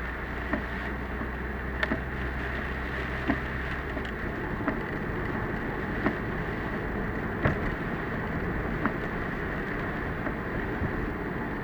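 Car interior noise picked up by a dashcam while driving in typhoon rain: a steady rush of road and rain noise with a sharp tick about every second and a half. A low hum drops away about four seconds in.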